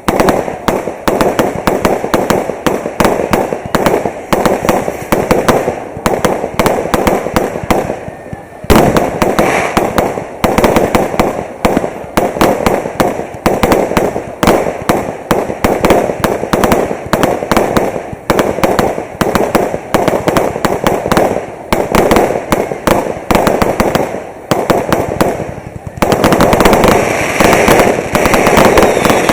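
Fireworks display: rapid, continuous bangs and crackling of aerial fireworks, growing denser and louder near the end.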